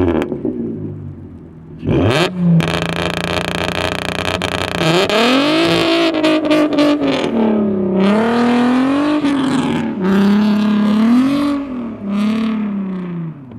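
2004 Volkswagen Golf R32's 3.2-litre VR6 engine through a non-resonated exhaust with a test pipe and the stock flapper open. About two seconds in it revs up and is held at a steady pitch on launch control with crackling. Then it pulls away, its revs rising and falling again and again while the car drifts in snow.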